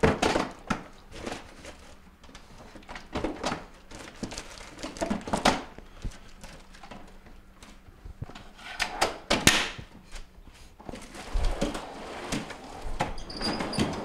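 Plastic freezer baskets and frozen food being set back into a bottom-freezer drawer: scattered clunks, knocks and rattles, louder about two thirds of the way through, then a low thump as the freezer drawer is pushed shut.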